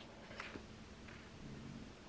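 Quiet room tone with a couple of faint clicks and rustles from a hardcover picture book being handled, the clearest about half a second in.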